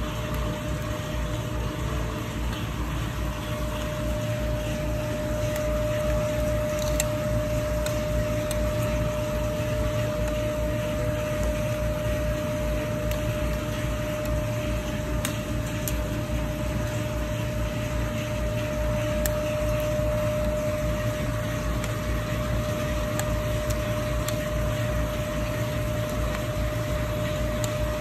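Paint roller mill running: a steady machine hum with a constant mid-pitched whine over it and a few faint ticks scattered through.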